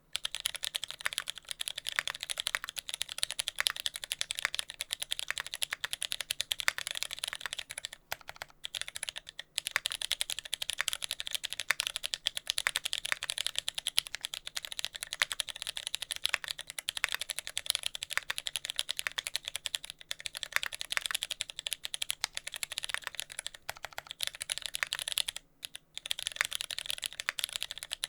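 Fast, continuous typing on a TX65 mechanical keyboard with lubed Cherry MX Brown tactile switches, a brass plate and GMK keycaps, broken by a few short pauses. The switches' tactile bumps were left unlubed, which gives a slight contact-point noise under the keystrokes.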